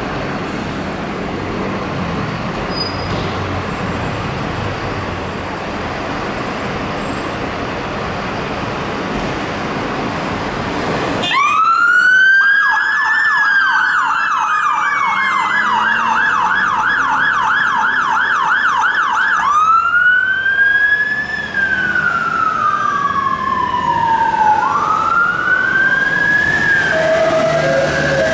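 Steady street traffic noise for about the first eleven seconds, then a fire engine siren starts: a rising wail, several seconds of fast yelp, then slow wails, with a second siren joining near the end.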